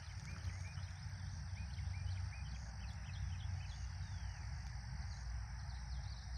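Small birds chirping, many short rising notes in quick succession, over a steady low rumble of wind on the microphone.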